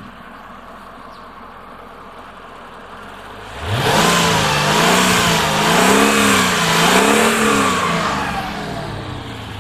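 Mercedes-Benz SL500's V8 engine revved with the bonnet open: about three and a half seconds in the note climbs sharply, then rises and falls three times with the throttle before dropping back toward idle.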